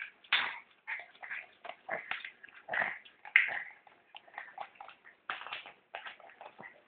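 A small long-haired dog playing with a ping pong ball on a tile floor: a quick, irregular string of short sounds, one louder than the rest about three and a half seconds in.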